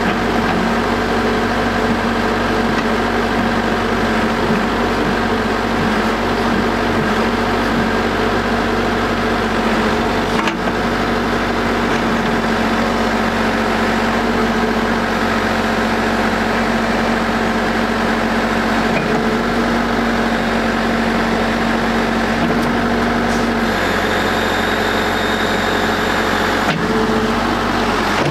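Cat 420D backhoe loader's diesel engine running steadily.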